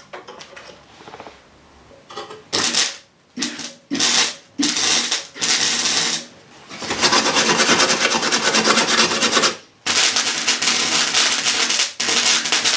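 Gasless (flux-cored) MIG welder arc crackling as a steel repair panel is welded into a car body: a few short bursts of tacking, then longer runs of welding with brief pauses between them.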